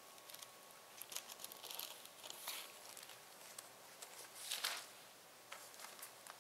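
Faint rustling and scraping as a long serrated knife saws through a sponge cake layer on paper, then the cut halves are lifted apart, with one louder brief swish about two-thirds of the way in.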